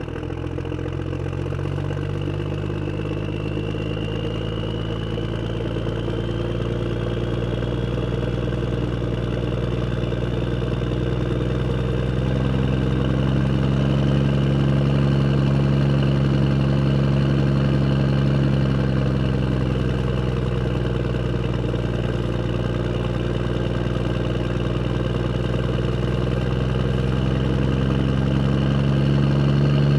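A motor vehicle's engine running steadily at low speed and gradually growing louder, its tone shifting slightly about twelve and twenty seconds in.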